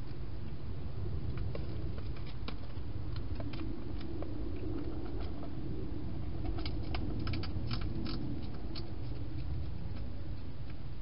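A hedgehog chewing its food: a scatter of small sharp clicks, thickest about seven to eight seconds in, over a steady low hum.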